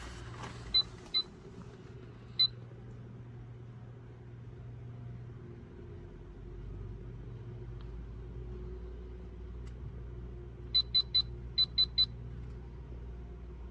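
Short high electronic beeps over the low steady hum of an Xhorse Dolphin XP005 key-cutting machine during optical identification of a key: two beeps near the start, another a second later, then two quick runs of three near the end.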